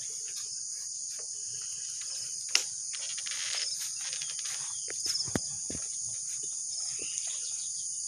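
Steady, high-pitched chorus of insects, with a single sharp click about two and a half seconds in.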